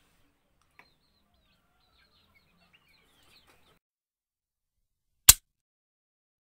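Faint clucking of chickens and bird chirps in the background for the first few seconds. A single sharp mouse-click sound effect comes a little over five seconds in.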